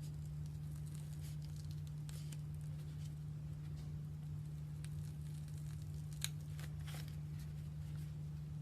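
Slime being pressed and pulled, giving faint crackles and small sticky clicks, with one sharper click about six seconds in, over a steady low hum.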